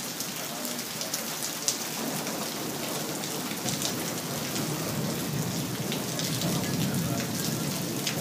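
Heavy monsoon rain pouring steadily, with sharp ticks of drops striking close by. A low rumble of thunder swells through the second half.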